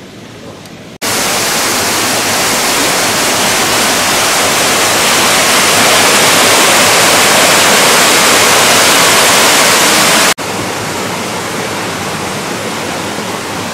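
Water cascading over a stone wall in a loud, steady rush that starts abruptly about a second in. Near the end it cuts to a somewhat quieter rush of a small waterfall spilling under a wooden footbridge.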